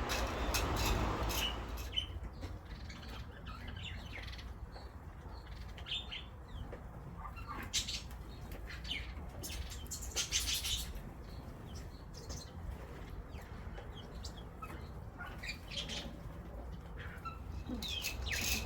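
Birds chirping in short, scattered calls, one longer rattling call about halfway through and quick sliding chirps near the end, over a steady low rumble.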